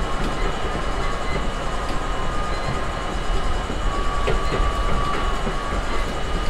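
R32 subway car running along the track with a steady rumble of wheels on rail and a few faint clicks. From about four seconds in, a faint high steady tone rides over the rumble.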